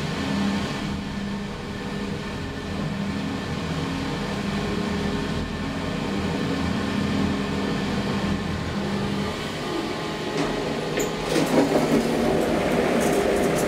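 2012 SMW traction elevator heard from inside the car while it travels the shaft: a steady hum with a low drone. The sound changes about ten seconds in as the car comes to a stop, and the car's sliding glass doors open with a run of clicks and knocks near the end.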